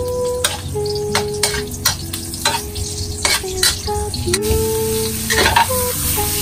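Food stir-frying in a pan: oil sizzling while a spatula scrapes and knocks against the pan again and again, with the sizzle growing stronger near the end.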